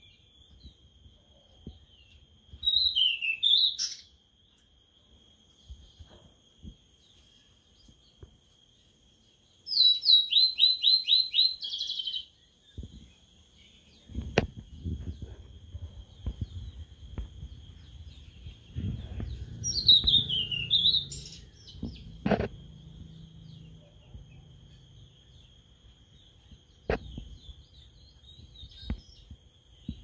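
A caged sulingan laut (tledekan laut) songbird singing three short whistled phrases several seconds apart: a quick falling phrase, then a fast run of about eight repeated notes, then another falling phrase. A faint steady high whine runs underneath, with a low rumble and a few sharp knocks in the middle.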